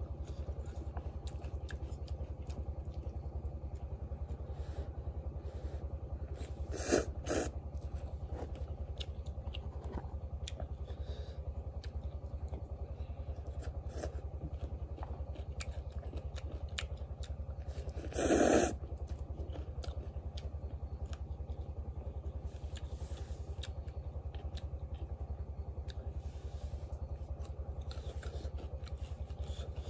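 A small engine running steadily with an even low throb. Short noisy bursts come about 7 seconds in and, louder, about 18 seconds in.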